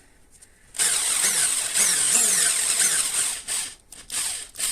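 Rough scraping and rubbing on the clamped armature shaft of an Audi A6 C5 heater blower motor as it is cleaned after being roughened with coarse sandpaper. The noise lasts about two and a half seconds, with repeated falling streaks, and is followed by three short strokes near the end.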